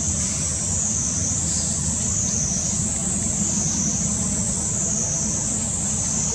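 Insect chorus: a high, steady buzzing that swells and fades about once a second, over a steady low rumble.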